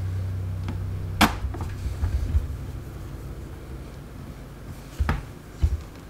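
Small clicks and knocks of screws and a screwdriver being handled on a laptop's plastic palmrest during reassembly, with one sharp click about a second in and a couple of dull knocks near the end. A low steady hum sits underneath and slowly fades.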